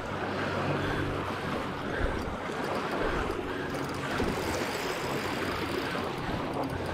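Steady wind and lapping-water noise, with a low steady hum underneath.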